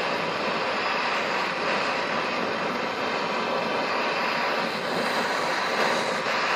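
Blowtorch flame burning with a steady rushing hiss, heating a copper pipe joint for soldering.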